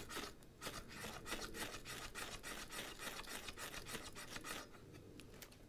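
Knife spine scraping down a ferro rod (fire steel) in a quick run of short strokes, throwing sparks onto wood shavings to light tinder; the strokes stop about four and a half seconds in.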